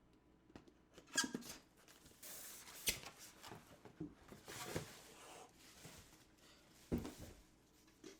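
Rustling and a few scattered knocks of a package being handled and opened, with a longer rustle a little after two seconds in.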